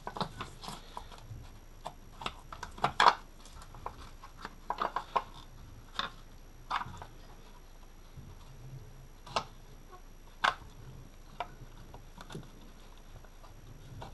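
Gloved hands fitting hoses and plastic clip parts back into a car engine bay: irregular clicks, taps and light knocks, the loudest about three seconds in and about ten and a half seconds in.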